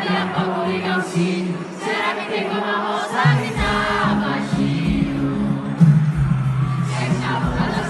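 Live pop concert music with a large crowd singing along; the bass comes in about three seconds in.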